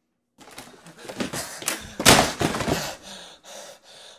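A panelled front door is pushed open and slammed shut with a loud thud about two seconds in, followed by a man's heavy panting near the end.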